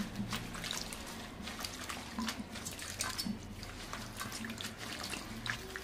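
Water splashing and dripping in irregular small splashes as fresh fenugreek leaves are swished gently by hand in a steel bowl of water to wash them.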